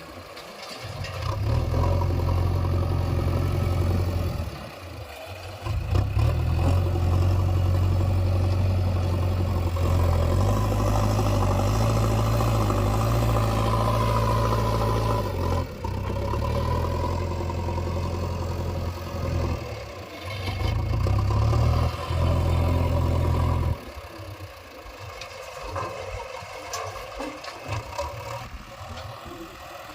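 JCB 3DX backhoe loader's diesel engine working, its low drone rising and falling in steps as the hydraulics take load during digging and loading. It eases off briefly several times and drops to a quieter idle about 24 seconds in.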